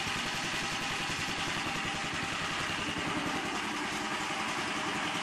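8 HP Honda single-cylinder gasoline engine running steadily, with rapid even firing pulses, under the load of belt-driven alternators.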